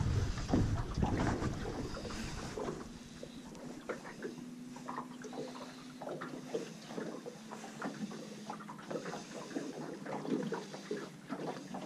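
Quiet boat-on-the-water sound: small irregular slaps and ticks of water and handling against a small aluminium boat's hull, with some wind on the microphone at the start. A faint steady hum sets in about two and a half seconds in and stops near the end.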